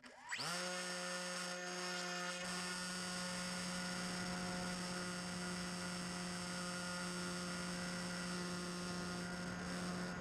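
Bixler 2 RC plane's electric motor spooling up, rising quickly in pitch in the first half second, then running steadily with a constant whine, heard from on board the plane.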